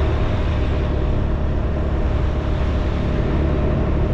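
Road and wind noise of a vehicle driving along a smooth paved road: a steady deep rumble with an even hiss above it, unchanging throughout.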